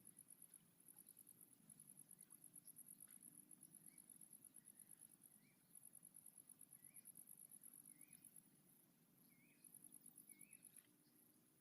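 Faint, high-pitched insect trilling in rapid pulsing trains that stop and start. A short, soft chirp repeats about once a second in the second half.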